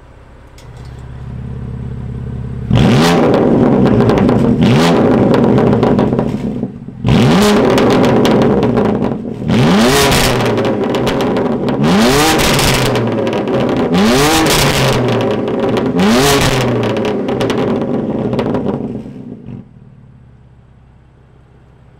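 BMW M3 CS twin-turbo straight-six through a Frequency Intelligent valved exhaust, with the valves open, revved hard about seven times in a row. Each rev climbs quickly and falls back, with crackles and pops between revs, and the engine settles to a quiet idle near the end.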